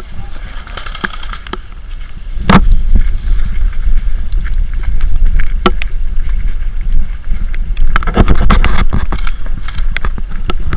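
Wind and movement rumble on a body-worn camera's microphone as the wearer moves off at pace, loud from about two seconds in, with scattered sharp clicks and knocks.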